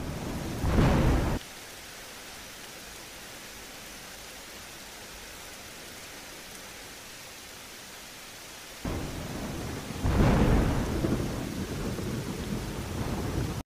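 Thunderstorm: steady rain hiss with a short roll of thunder about a second in and a longer rumble of thunder from about nine seconds in that swells and carries on to the end.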